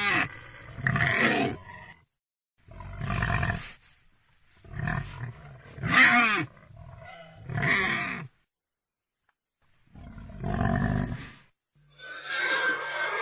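Pig calling in a string of about seven harsh grunts and squeals, each up to a second or so long. Some rise and fall in pitch, and there is a pause of a couple of seconds after the fifth.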